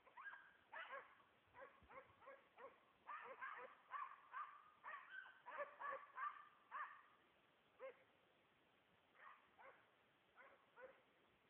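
A faint, rapid series of short, pitched animal calls from something out of sight. The calls come several a second for about the first seven seconds, then thin out to scattered single calls.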